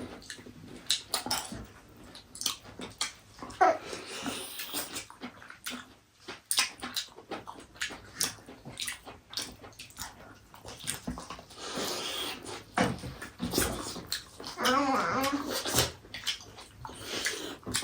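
Close-up eating sounds: rapid smacks, clicks and crunches of chewing and slurping. Near the end a short, high, wavering voice sounds briefly.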